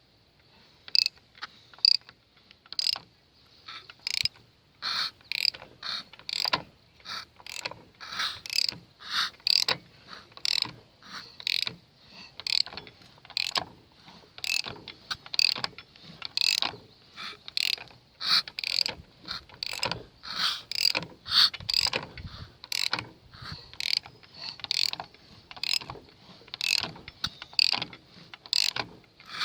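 Four-cylinder engine being turned over by hand with a wrench: sharp clicks repeating about once or twice a second, along with the psh, psh of the cylinders making compression.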